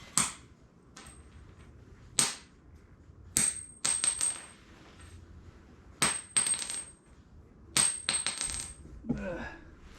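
A socket with a seized exhaust manifold bolt stuck in it, smacked against the floor to knock the bolt out: about nine sharp metal clanks in small groups, several leaving a short high ring.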